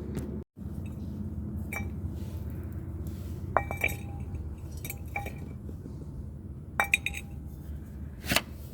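Metal tools and brake parts clinking against each other: about seven sharp, separate strikes that each ring briefly, over a steady low hum.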